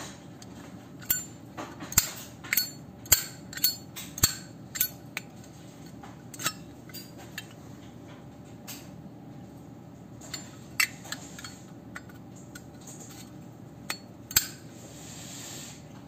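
A 1998 chrome Zippo lighter being handled: a run of sharp metallic clicks and clinks, about a dozen in the first five seconds and a few more spaced out after, as the hinged lid snaps open and shut and the insert is pulled out of and pushed back into the case. A soft rubbing near the end.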